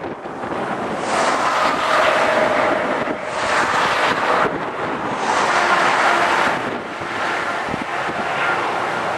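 Gusty wind buffeting the microphone, swelling and easing in surges of a second or two.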